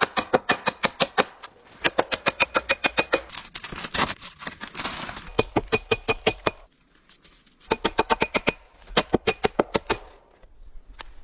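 Rapid sharp knocks, about eight a second, in bursts of one to two seconds with short pauses between, carrying a faint metallic ring.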